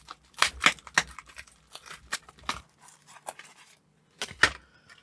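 Plastic packaging bag being torn open and crinkled: a run of sharp crackles and snaps through the first half, then another short cluster near the end.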